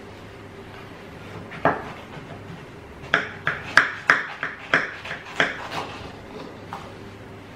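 A knife cutting through the crisp, flaky puff-pastry crust of a galette des rois, with sharp crackles and clicks of the blade against the dish. There is one click, then a quick run of about eight close together.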